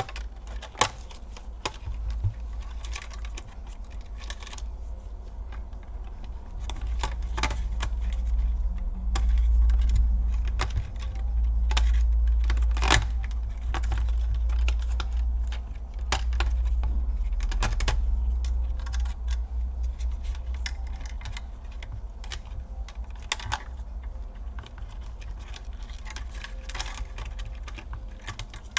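Scattered small clicks and taps of metal tweezers against a laptop's plastic and metal innards as its internal cables are unhooked and unplugged, over a low rumble that swells through the middle.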